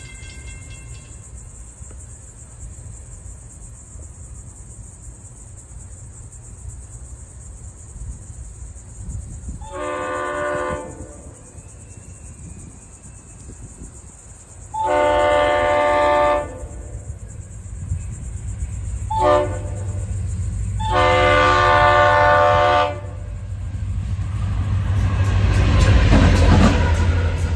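EMD GP40-2 diesel locomotive sounding its horn in the grade-crossing pattern: two long blasts, one short and a final long one, as it approaches. Near the end its diesel engine and wheels on the rails grow loud as it passes close by.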